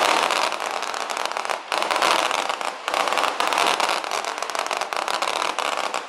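Feu de joie: massed SAR21 assault rifles fired one after another down the ranks, a dense running crackle of shots with brief breaks about 1.7 and 2.8 seconds in.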